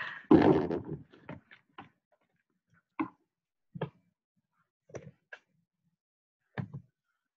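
A voice trailing off at the start, then a few faint, irregular taps and knocks over the following seconds, heard through video-call audio.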